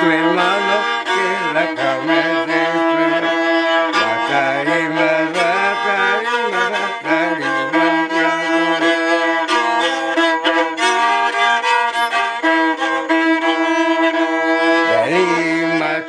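A violin playing a melody, with a lower accompanying part moving beneath it.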